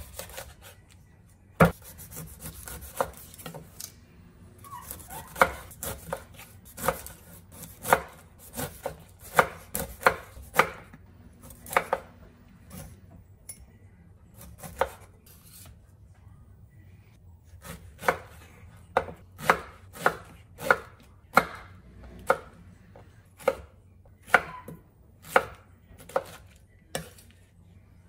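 Chef's knife cutting a whole pineapple on a wooden cutting board: a run of irregular sharp chops as the blade goes through the rind and flesh and knocks on the board, with a lull of a few seconds about halfway through.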